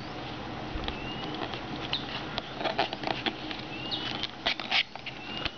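Fingernails scratching and picking at a paper seal sticker on a cardboard phone box: a run of small clicks and scrapes, with a few short rising squeaks as the seal is worked loose.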